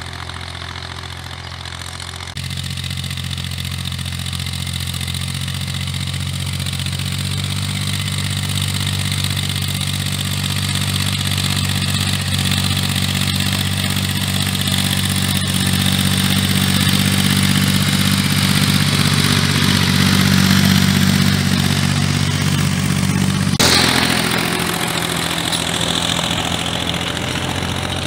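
Diesel farm tractor engine running steadily while it pulls a seedbed cultivator through loose soil, growing louder as it comes closer. The sound jumps abruptly about two seconds in and again near the end.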